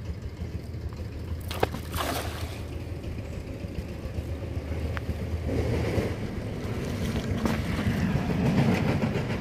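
A cast net lands on the water with a splash about two seconds in, then water sloshes and splashes for the last few seconds as the net is hauled back in by its hand line, over a steady low wind rumble on the microphone.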